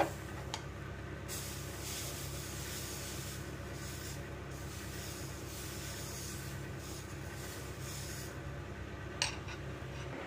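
Chana dal batter sizzling on a hot flat griddle as it is poured and spread with a steel ladle, ghee bubbling at its edges; the steady sizzle stops near the end. A few light clicks, and a steady low hum underneath.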